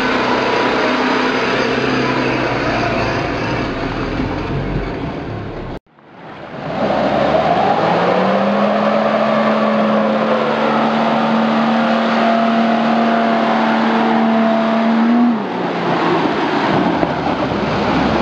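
4x4 engine running, heard from inside the cab. After a sudden cut about six seconds in, an off-road SUV's engine revs up and holds at high revs as it drives through deep mud, then drops back a few seconds before the end.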